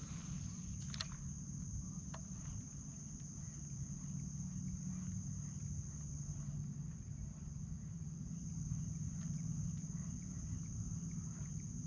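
Steady high-pitched insect drone, like crickets, over a low steady hum, with a couple of faint clicks about one and two seconds in.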